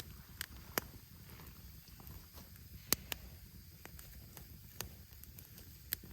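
Open wood campfire built as a log-cabin stack crackling, with a few sharp, irregular pops from the burning wood over a low steady rumble.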